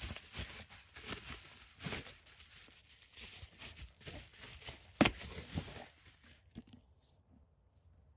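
Paper packaging rustling and crinkling as a book box is unpacked by hand, with a sharp knock about five seconds in; the handling stops about seven seconds in.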